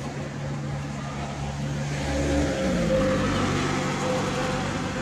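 A motor vehicle engine running steadily, growing louder about halfway through as its note falls.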